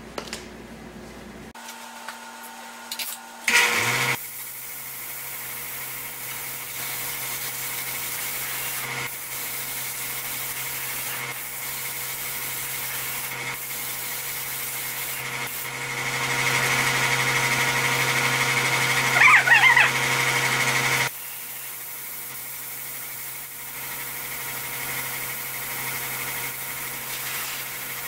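A small motor starts with a knock and runs steadily with a hum and a hiss. It grows louder for about five seconds past the middle, then drops off abruptly and carries on more quietly.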